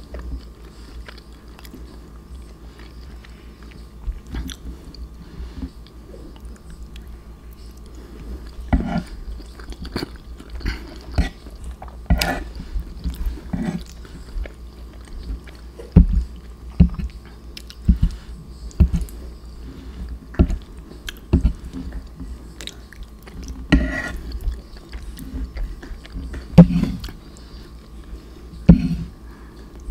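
A person chewing a mouthful of macaroni and cheese close to the microphone, with irregular wet mouth clicks and smacks that come more often and louder after the first several seconds.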